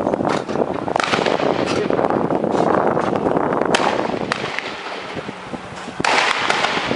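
Gunshots: several sharp cracks at irregular intervals over a steady rushing noise.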